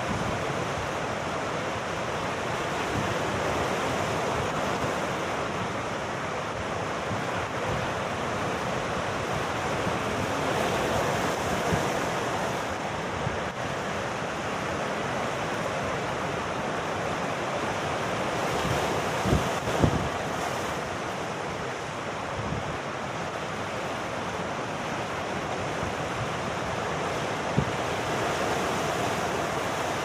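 Sea surf breaking and washing over rocks: a continuous rushing that swells and eases, with a few brief low thumps about two-thirds of the way through and once near the end.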